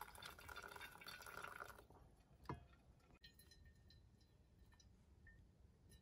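Hot water poured faintly into a collapsible silicone pour-over coffee dripper for about the first two seconds, then a single light clink, then near silence.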